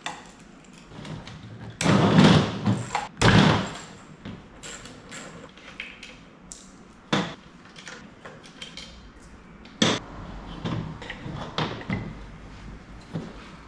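Hand tools working a stubborn screw on a Zodiac FloPro pool pump's back plate: two loud, rough scraping bursts about two and three seconds in, then scattered knocks and clicks as the parts are handled.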